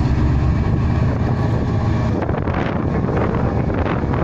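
Class 68 diesel locomotive's Caterpillar V16 engine running loud and steady. From about two seconds in, wind buffets the microphone over it.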